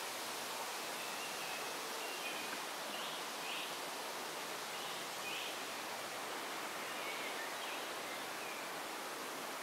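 Quiet forest ambience: a steady, even hiss with faint, short bird chirps scattered through it.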